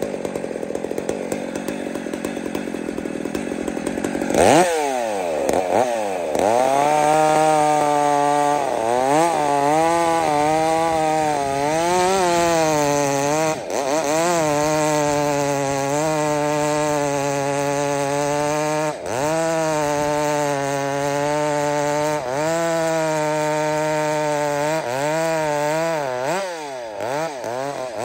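A Husqvarna-based hybrid two-stroke chainsaw cutting through a large log at full throttle. About four seconds in, its engine pitch drops sharply and climbs back. After that it runs at high revs, the note wavering up and down as the chain bites and recovers in the wood, with a few brief dips.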